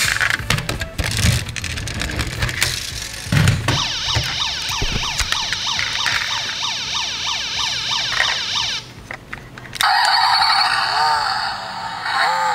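Clicks of die-cast toy cars being handled. About three and a half seconds in, an electronic toy siren starts: a fast, repeating up-and-down yelp that stops near nine seconds. About ten seconds in, a different hissy electronic sound effect begins.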